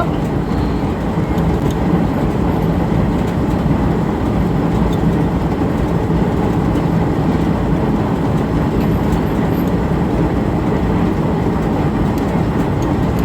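Steady, even mechanical rumble with a low hum, unchanging throughout, with no rhythm of stitching.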